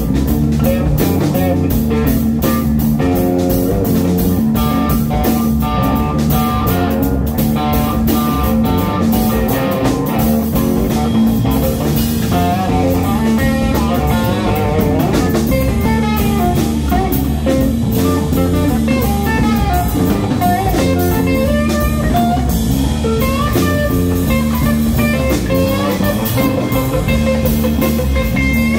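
Blues-rock band playing live: two electric guitars over a drum kit, loud and steady, with a wavering higher melody line coming in about halfway.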